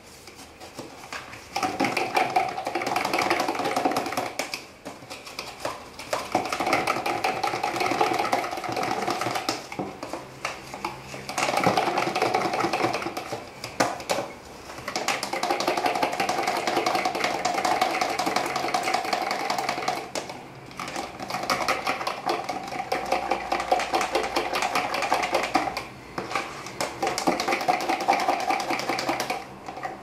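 Fork beating a milky liquid mixture in a tall plastic measuring cup: a fast, steady clicking of metal against plastic. It comes in runs of a few seconds broken by short pauses.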